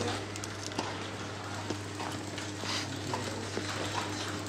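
Computer-room ambience: a steady low hum with scattered light clicks of keyboards and mice.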